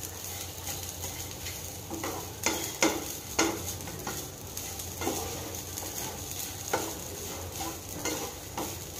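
Wooden spatula stirring and scraping grated coconut and whole spices around a non-stick frying pan as they dry-roast over a low flame with no oil, in irregular strokes about every half second to second, over a faint steady hiss from the pan.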